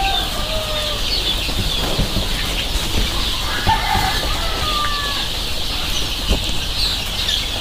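A large flock of young gavran (desi) chicks peeping all together in a dense, continuous high chatter, with a few lower, longer calls and occasional faint knocks.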